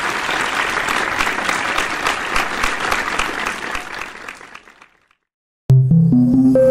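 Applause, a dense patter of many hands clapping, fading out about five seconds in. After a second of silence, ambient music with sustained, bell-like tones begins near the end.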